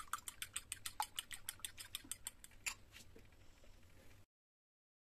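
Metal fork beating raw eggs in a glass bowl: quick, even clicks of the fork against the glass, about seven a second, stopping about three seconds in.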